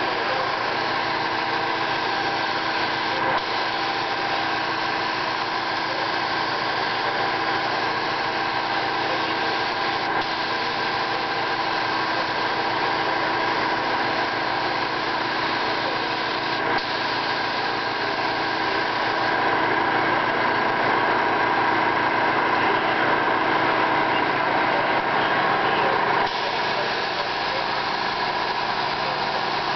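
Compressed-air spray gun hissing steadily as it sprays a coating onto a sample panel, over a machine hum with several steady tones. The hiss swells a little for several seconds past the middle, with a few very short breaks.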